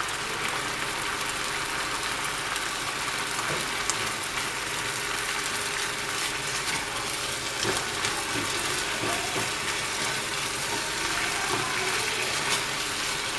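Chicken pieces sizzling steadily in a frying pan with oil and a little water that is cooking off, with a few light taps and scrapes from a silicone spatula breaking the pieces smaller.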